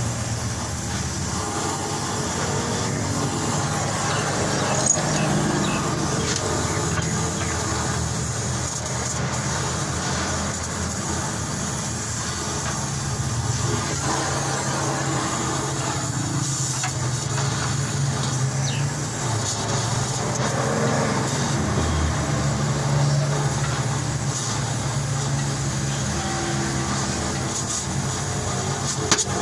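Gas welding torch burning steadily against a car's exhaust silencer as a seam is welded, a continuous even noise with no breaks.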